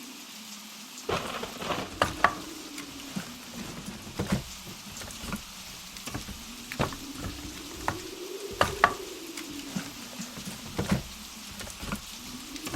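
Blizzard wind howling, a moaning tone that slowly rises and falls over a steady rush. From about a second in it is joined by irregular sharp cracks and clicks, a few much louder than the rest.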